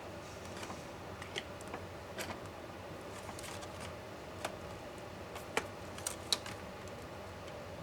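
Scattered light clicks and taps of small tools and plastic and metal laptop parts being handled during disassembly, about half a dozen in all, the sharpest two close together near the end, over a steady faint hiss.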